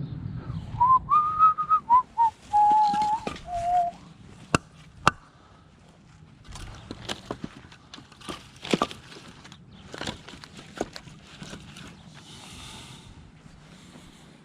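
A person whistling a short run of held notes that step down in pitch. It is followed by a few sharp wooden knocks as split firewood pieces are set on a stack.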